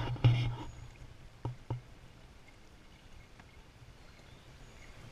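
A muffled thump right at the start, then two sharp knocks about a second and a half in, on and around a plastic pedal-drive kayak, heard through a waterproof camera housing. After the knocks only a faint steady outdoor background remains.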